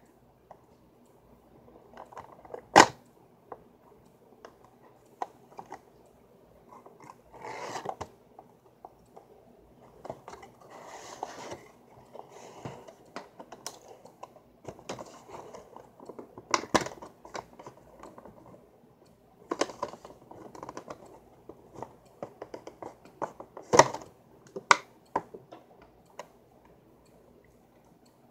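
A cardboard Funko Pop box with a plastic window being handled close to the microphone: scattered taps, clicks and short crinkling rustles, with one sharp knock about three seconds in.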